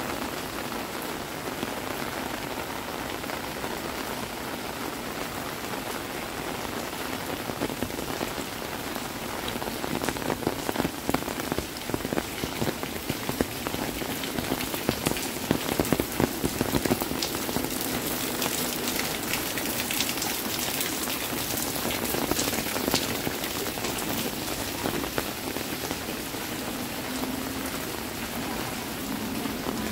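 Rain falling on a paved alley, a steady hiss of rain on wet pavement. About ten seconds in it turns louder, with dense sharp drop hits close by, and it eases again after about seventeen seconds.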